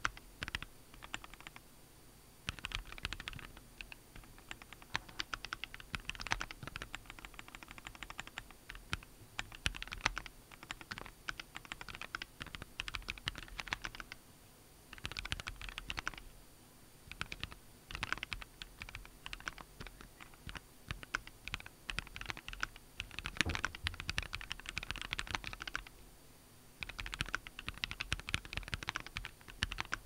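Typing on a Keychron Q9 Plus 40% mechanical keyboard with Keychron K Pro Red linear switches and Keychron keycaps. Keystrokes come in quick runs of clicks, with a few brief pauses of about a second.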